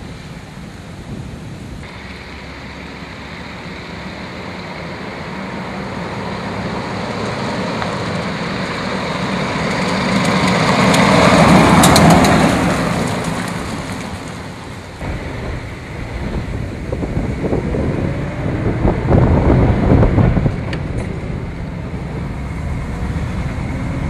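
A 1939 Cadillac V16's flathead V16 engine and tyres as the car drives on the road. The sound builds slowly to its loudest about halfway through and then fades, like the car passing by. It is followed by running with uneven surges and wind noise.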